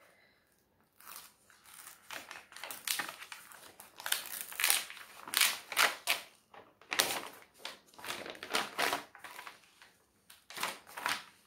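Rustling and crinkling of a stiff paper sheet and canvas in irregular crackles as a folded diamond-painting canvas is opened out and its protective paper cover lifted off.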